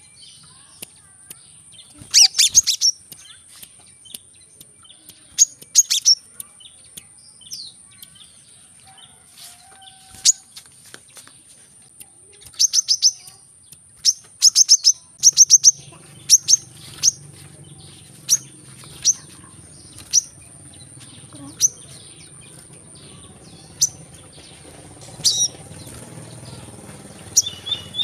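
Brown-throated sunbird (kolibri kelapa) calling: sharp, high chirps, some single and some in quick runs of three to five. A steady high whine sits underneath, and a low rumble joins about halfway through.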